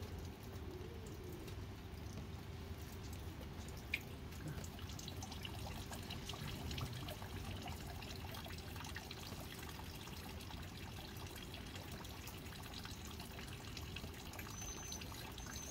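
Newborn Jindo puppies suckling at their mother, a faint continuous wet clicking and smacking, with one sharper click about four seconds in.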